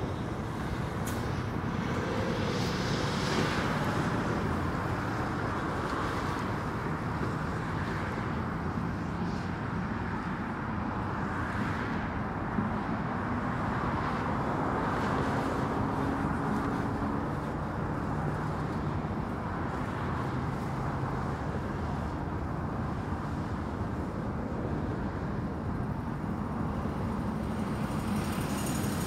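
Continuous highway traffic noise: a steady stream of vehicles passing, tyre hiss with engine hum swelling and fading.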